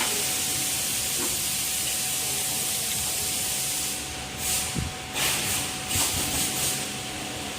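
Compressed air hissing in a steady blast for about four seconds, then several short puffs, over a faint steady machine hum.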